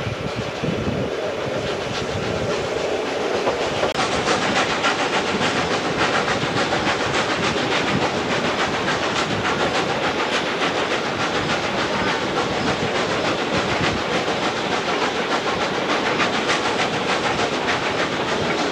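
Ex-South Australian Railways 520-class 4-8-4 steam locomotive running under steam, heard close from the train. Its exhaust beats mix with a steady, rapid clatter of wheels on rail.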